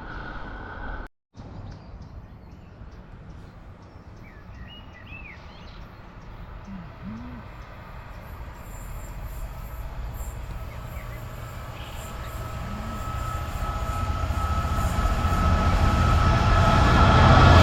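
A diesel train approaching along the line, its engine rumble and running noise building steadily louder over the second half, with a steady whine joining in.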